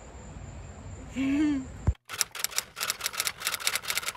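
Typewriter key-clack sound effect, a fast even run of clicks about six a second, starting suddenly about two seconds in as title text types onto the screen. Before it there is outdoor background noise with a brief voice sound.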